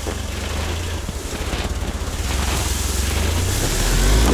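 Engine of an all-terrain vehicle on large low-pressure tyres running under load with a rapid pulsing as it climbs a snowy bank, growing louder toward the end as it comes close.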